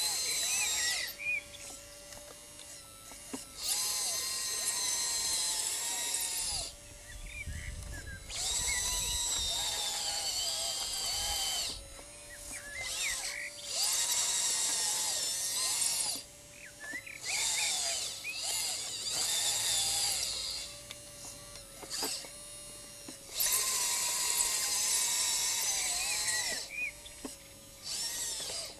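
Radio-controlled scale-model Liebherr LR 632 crawler loader working, its battery-driven electric motors and hydraulic pump giving a high-pitched whine in repeated bursts of a few seconds that rise and fall in pitch as the motors speed up and slow down, with short pauses between moves.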